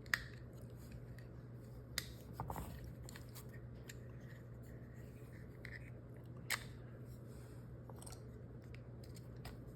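A few faint, sharp clicks and a brief rustle from the grips being worked off a Smith & Wesson Model 34-1 .22 revolver. The clicks come near the start, about two seconds in and about two-thirds of the way through, over a steady low hum.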